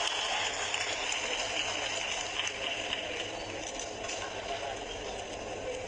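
Steady crowd noise from a large gathering, a mixed wash of many people, fading slowly.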